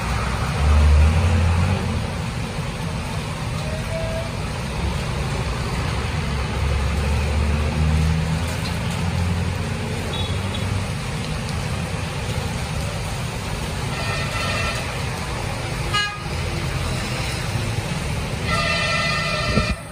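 Traffic on a rain-soaked street: a steady hiss of rain and tyres on the wet road with engines rumbling, and vehicle horns honking twice in the later part, the second one longer.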